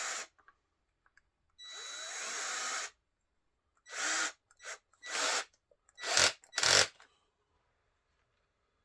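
A handheld electric power tool with a drill-like motor whine, run in a string of short bursts: one ending just after the start, one of over a second, then five shorter ones, the last two loudest and deepest.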